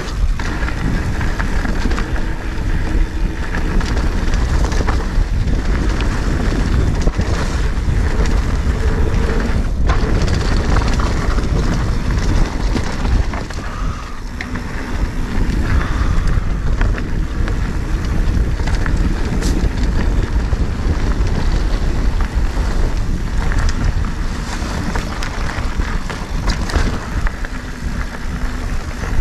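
Mountain bike riding a rough dirt trail: tyres rolling over dirt and rock with frequent rattles and knocks from the bike, under steady wind buffeting on the microphone.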